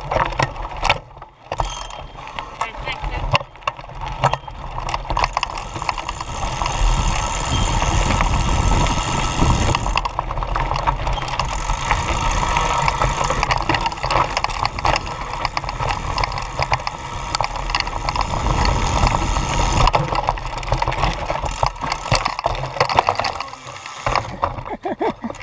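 Mountain bike riding over a rough, rocky trail, heard from a camera mounted on the bike: continuous rattling and clicking of the bike's parts over the tyre noise and a low rumble. Near the end the bike goes over in a fall and the steady riding noise drops away.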